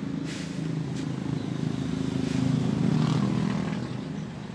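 A motorcycle engine running, getting louder to a peak about two and a half seconds in and then easing off, with a light click about a second in.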